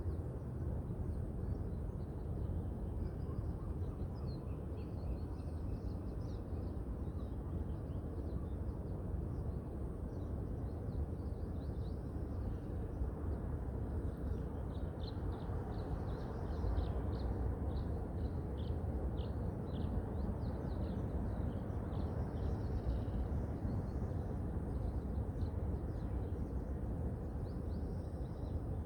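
Small birds chirping over a steady low rumble of wind and city noise; the chirping gets busier about halfway through.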